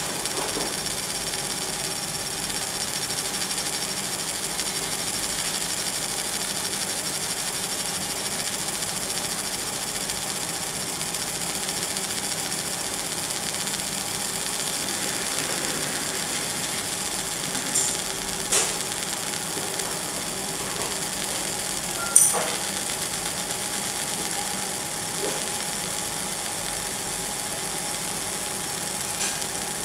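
Laser marking machine engraving a stainless steel vase: a steady hiss and hum with a high, even whine, broken by a few short sharp clicks past the middle.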